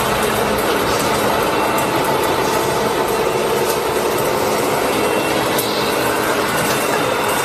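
Small electric motor and plastic gearbox of a remote-control toy truck whirring steadily as it drives.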